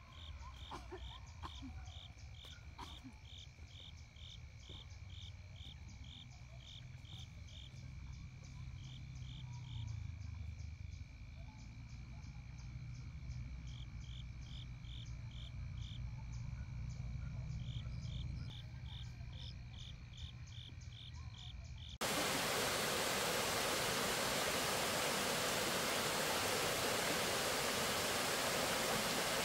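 A chorus of chirping creatures, pulsing about three times a second over a steady high buzz and a low rumble. About 22 s in, it cuts off suddenly and is replaced by a loud, steady hiss.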